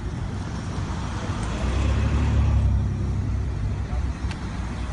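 Cars driving slowly past close by on a highway, engine and tyre rumble swelling as one vehicle passes about halfway through, then easing off.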